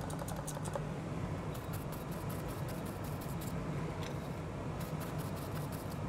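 Light, scattered clicks and taps in several short runs, from small tools being handled on an electronics repair bench, over a steady low hum of room equipment.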